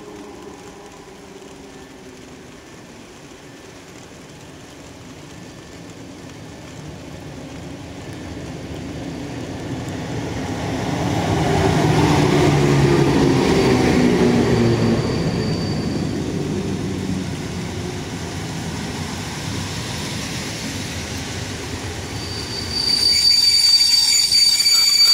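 Electric locomotive hauling an intercity passenger train, coming in and slowing to a stop at a platform. The running noise swells to its loudest as the locomotive passes, about halfway through, then the coaches roll by more quietly. Near the end a sudden, high-pitched squeal of wheels and brakes sets in as the train slows to halt.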